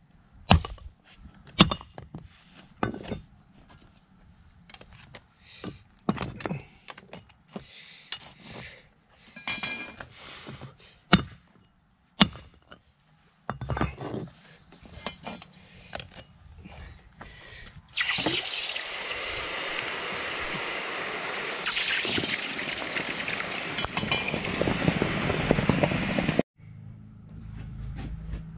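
Metal clinks and knocks as solid aluminium ingots are knocked out of steel ingot molds and set down on concrete pavers. About 18 s in a loud, steady hiss starts abruptly and runs for about eight seconds before cutting off.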